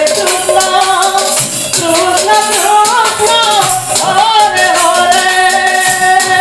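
Kirtan music: a wavering melody line over a fast, steady beat of barrel drum and jingling percussion.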